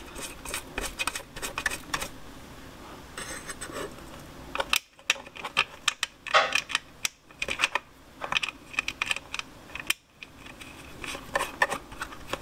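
Light metallic clicks and taps from 10 mm bolts being threaded by hand through a metal license plate bracket into a motorcycle's metal rear fender, coming in scattered clusters with short pauses between.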